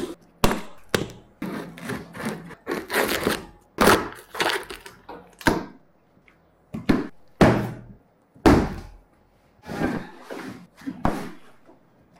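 Large cardboard shipping carton being opened: scissors cutting the plastic wrap and strapping, then tape and cardboard flaps ripped and pulled apart. A rapid, irregular run of rustles, rasping tears and short knocks.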